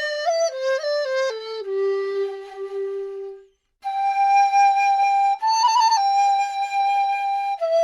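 Background music: a solo flute-like melody moving in stepped notes, with a long low held note that breaks off about three and a half seconds in, then a long high note with a brief trill.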